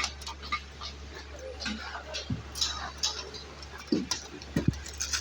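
Concrete slab pour in progress: a machine's steady low hum under scattered knocks and clinks of tools, with workers' voices faintly in the background. A few louder knocks come about four and five seconds in.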